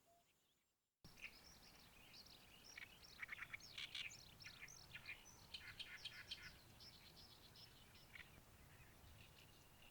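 Songbirds singing in quick, chattering phrases over a faint low background hum. The sound fades to silence in the first second, then the birdsong starts abruptly.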